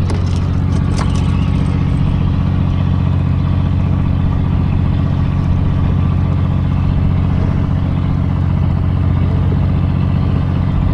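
Fishing boat's engine running steadily: a low, even drone that doesn't change, with a couple of light clicks in the first second.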